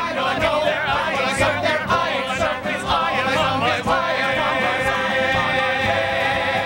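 Musical-theatre chorus singing, several voices with vibrato. About four seconds in they settle into a long held note.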